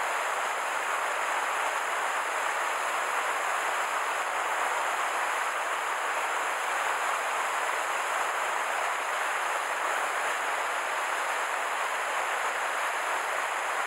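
Water rushing over a low weir in a small mountain stream: a steady, unbroken rush with no change in level.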